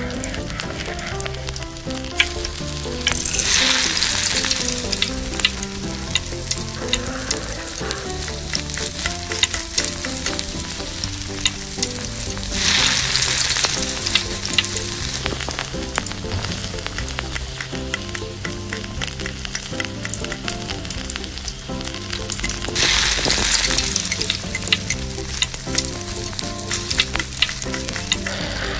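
Curry sizzling in a miniature clay pot while a tiny spoon stirs it, clicking and scraping against the pot. The sizzle swells louder three times, for a second or two each.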